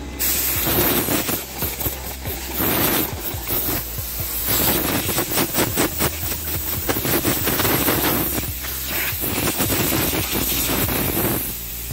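Body filler on a bus side panel being hand sanded: fast, uneven back-and-forth scratching strokes that start abruptly and stop shortly before the end.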